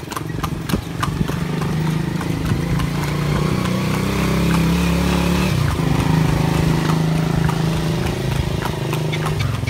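A motor vehicle's engine running close by, steady in pitch and louder through the middle, over the clip-clop of the carriage horse's hooves on the pavement.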